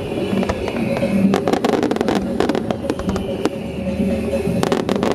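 Fireworks exploding in a rapid, irregular string of bangs and crackles, with music playing underneath.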